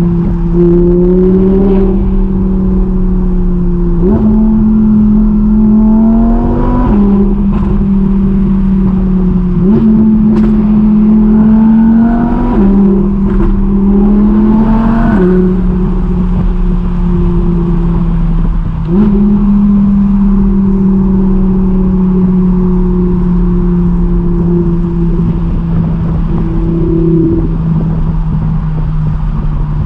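Audi R8's V10 engine heard from inside the cabin while driving a winding road. Its pitch climbs and then drops with each upshift, and jumps up sharply on several downshifts. It settles into a steady, slightly falling drone over the last ten seconds, with a few brief sharp cracks around the middle.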